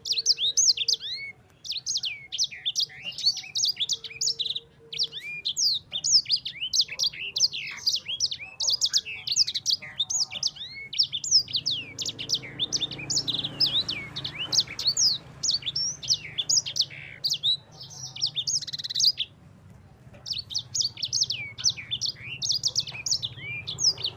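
Yellow-fronted canary (Mozambique canary, 'sanger') singing a long, fast, continuous rolling song of quick high sweeping notes. There is a brief pause about two-thirds of the way through, then the song resumes.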